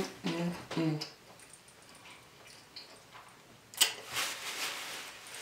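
Three short closed-mouth hums ("mm, mm, mm") in the first second, then a sharp click just under four seconds in, followed by the rustle of a paper napkin as greasy fingers are wiped.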